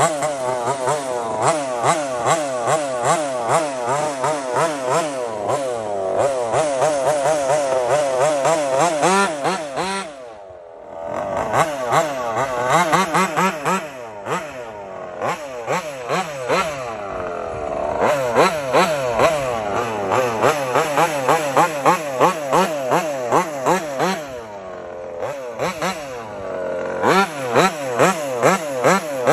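Taylor RC 35cc two-stroke gas engine in a 1/5 scale RC car being revved over and over, its pitch rising and falling quickly about twice a second. It drops back to a lower, quieter run twice, briefly, around a third of the way in and again later.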